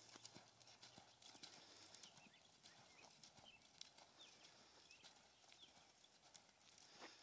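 Faint, irregular thuds of a horse's hooves striking soft arena sand as it lopes around barrels.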